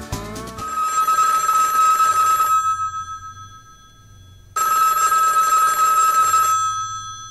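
A telephone ringing twice, each ring a steady tone lasting about two seconds with about two seconds' pause between.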